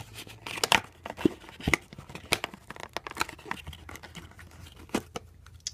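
Paper manual and cardboard cube box being handled: irregular rustling and crinkling with sharp paper clicks, busiest in the first three seconds and sparser after.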